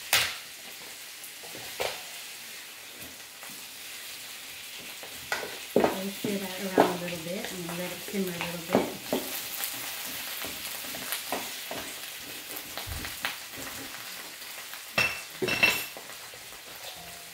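Pork belly strips sizzling steadily in an electric skillet while two wooden spatulas stir and turn them, with sharp knocks and clacks of the spatulas against the pan every few seconds.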